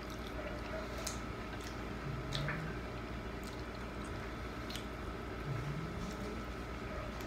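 Close-up wet eating sounds: shrimp being chewed, with lip smacks and fingers sucked clean of spicy garlic butter sauce, giving scattered short wet clicks. A couple of short low hums are heard partway through.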